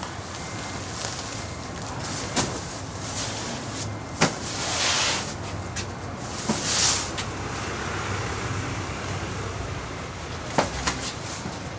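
Big sacks of dried seaweed being heaved and dropped into a truck's cargo box: a few sharp knocks on the box floor and walls, and two longer rustling, scraping swells as sacks are dragged into place, over a steady low background hum.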